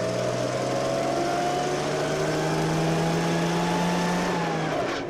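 Ferret scout car's engine running, its note rising slowly over several seconds, then dropping away near the end.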